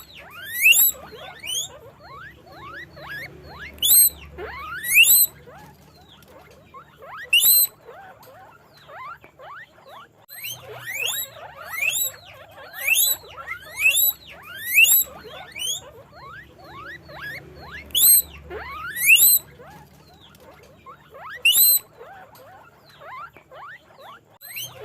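Guinea pigs squealing: many short, high, rising whistles (wheeks), overlapping one another and coming in loud clusters every second or two.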